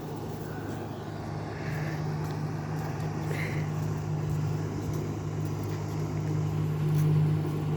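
A small riverboat's motor running steadily with a low, even hum. It grows louder from about a second and a half in and is loudest near the end, as the boat comes closer.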